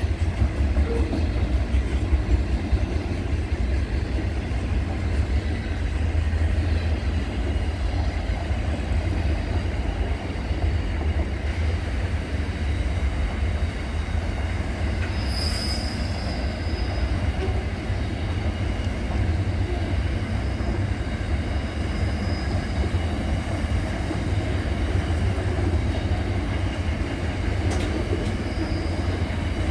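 Double-stacked container freight train rolling past, a steady rumble of wagons and wheels on the rails. A brief high wheel squeal comes about halfway through, with fainter squeals later.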